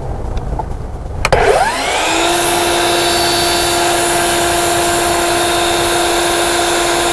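Power miter saw switched on about a second in, its motor whining up to full speed within a second and then running steadily at a constant pitch.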